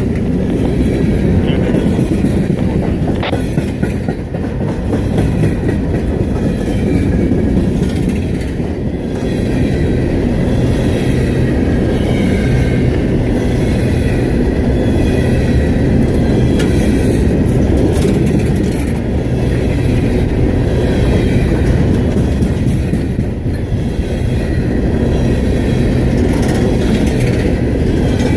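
Empty coal hopper cars of a freight train rolling past close by: a loud, steady rumble of steel wheels on the rails.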